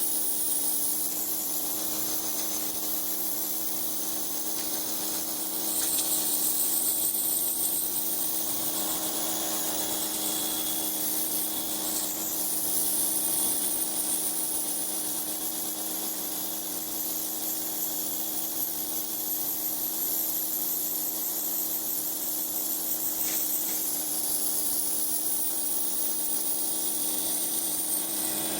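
Pressure washer spraying water in a steady hiss, with the steady hum of its pump underneath. The hiss grows louder now and then as the spray shifts.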